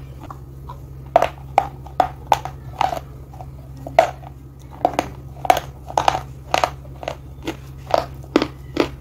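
Pieces of slate being bitten and chewed: a string of sharp, dry crunches, about one or two a second, over a steady low hum.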